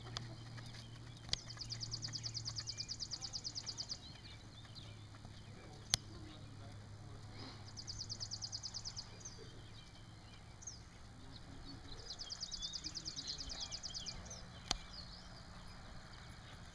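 A small bird sings a rapid, even, high trill three times, each lasting one to a few seconds, over a low steady hum. Three sharp clicks fall in between.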